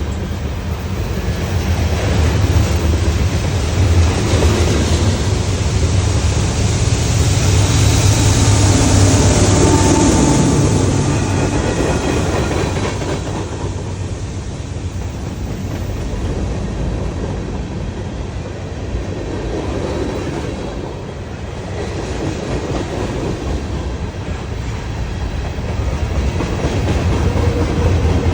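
Train rolling past, a steady rumble of wheels on the rails, loudest about nine seconds in, easing off and swelling again near the end.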